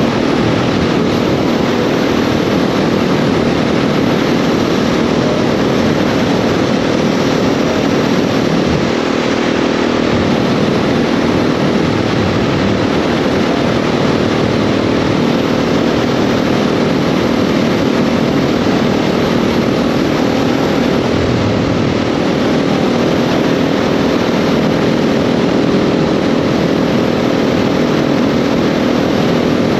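KTM 690 SMC R supermoto's single-cylinder engine running at steady revs under way, over a constant rush of wind noise.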